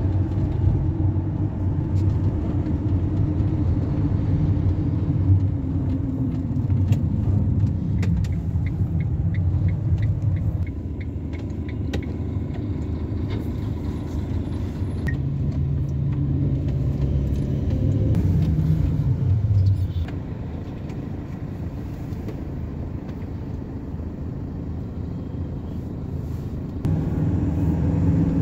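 Car driving along a city road, heard from inside the cabin: steady engine hum and tyre rumble. The engine note rises past the middle and falls away, and the sound is quieter for several seconds near the end before picking up again.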